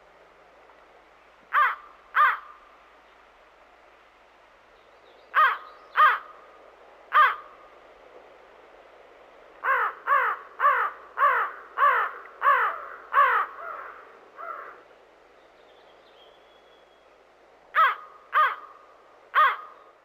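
Crow cawing in bouts: two harsh caws, then three, then a fast run of about seven, then three more near the end.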